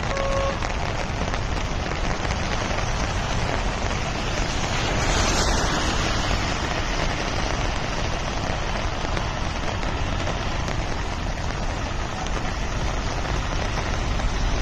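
Steady, even rush of heavy rain falling during a cyclone downpour.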